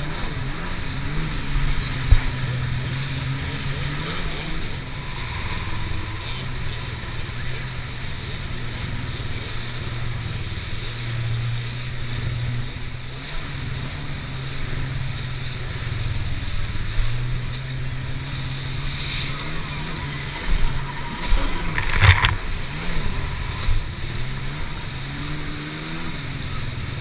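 Kawasaki stand-up jet ski's engine running hard at speed, a steady drone that shifts slightly in pitch, over the hiss of spray and water rushing past the hull. A sharp thump comes about two seconds in, and a louder burst of knocks comes near the end as the hull slaps over the wake.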